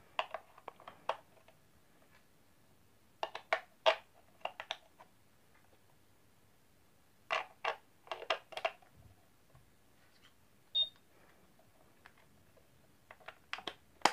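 Plastic clicks and taps of slim batteries being pressed into the battery compartment of a digital projector alarm clock, in several short clusters. One short high beep comes about two-thirds of the way through, as the clock powers up.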